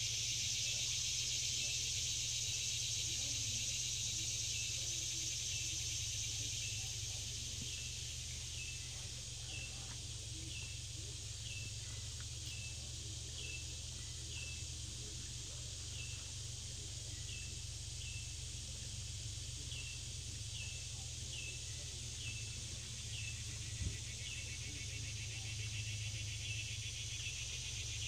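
Steady high-pitched insect chorus, with a short chirp repeating about once a second through most of it and a steady low hum underneath. One faint knock comes near the end.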